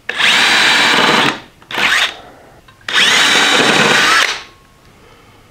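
Ryobi cordless drill spinning a self-centering bit to start pilot holes in wood: two runs of about a second and a half each, with a short burst between.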